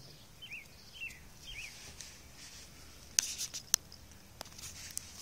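Tabby cat chewing a dragonfly: two sharp crunches a little past halfway, the loudest sounds, with a few softer clicks of chewing after them. Three short high chirps, like a small bird, come in the first two seconds.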